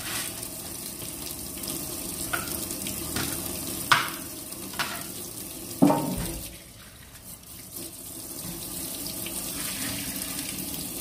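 Kitchen tap running into a stainless steel sink and metal bowl as potatoes are rinsed, with a few sharp knocks of potatoes and the bowl against the metal, the loudest about six seconds in. The splashing drops off for a moment after that knock, then runs on.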